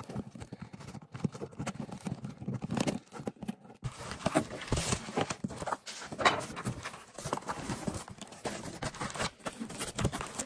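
A cardboard shipping box being opened by hand. Scissors cut through the packing tape and scrape the cardboard, then the taped parcels inside are shifted and lifted out, making irregular taps, scrapes and rustling.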